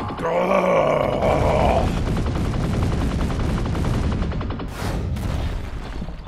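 Cartoon battle sound effects: a rapid rattle of shots, about ten a second, that fades out, with a couple of sharp blasts near the end.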